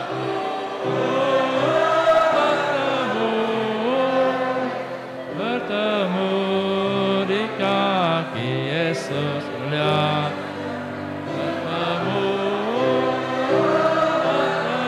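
A group of people singing a hymn together, many voices on long held notes that slide from one pitch to the next.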